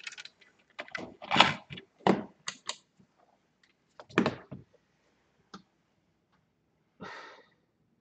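Objects being handled on a workbench: a handful of knocks and clicks in the first five seconds, then a short rustle about seven seconds in.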